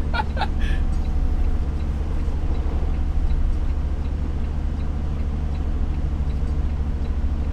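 Semi truck's diesel engine running low and steady, heard from inside the cab while the truck is slowly reversed into a parking slot, with a faint regular tick about every two-thirds of a second.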